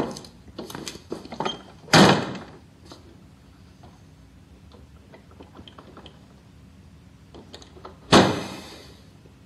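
A door being worked: a knock and a run of latch and handle clicks, a heavy thud about two seconds in, faint clicks, then another heavy thud about eight seconds in.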